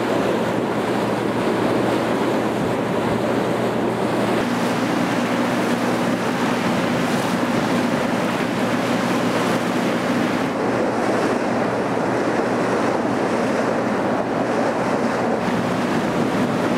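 Passenger launch's engine running with a steady drone, heard from on deck over water rushing past the hull and wind on the microphone. A slightly higher steady engine note comes up about four seconds in.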